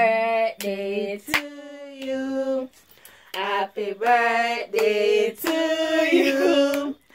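A woman singing a slow melody in long held notes, with a short pause between phrases about three seconds in.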